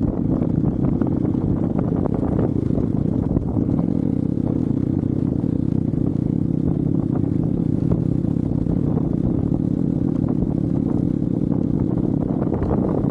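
Hero Xpulse 200 motorcycle's single-cylinder engine running steadily, with scattered knocks and rattles.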